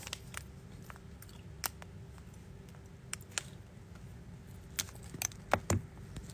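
About ten small, sharp clicks and taps at irregular intervals, the loudest a pair near the end, over a faint steady hum.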